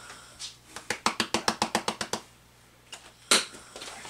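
Paprika shaken from a plastic spice shaker jar: a quick run of light rattling taps, about eight a second for a second and a half, then a single sharp knock about three seconds in.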